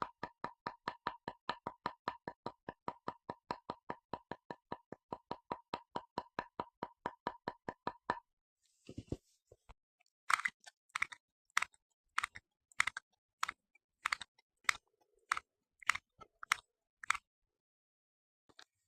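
A household object making a rapid, even run of short clicks, about five or six a second, that stops about eight seconds in; after a short pause come louder, sharper clicks or snaps at an uneven pace of one or two a second.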